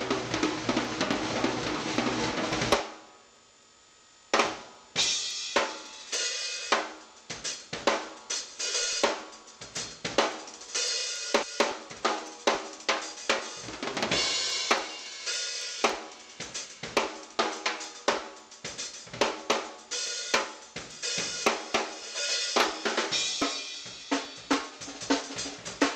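Acoustic drum kit played solo: quick snare, tom and bass drum hits under crashing cymbals. The sound drops out for about a second and a half around three seconds in, then the playing resumes.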